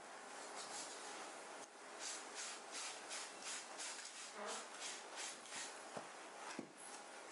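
A small handheld scrubber rubbing against shirt fabric in quick back-and-forth strokes, about three a second, starting about two seconds in, as a stain is scrubbed out of the shirt.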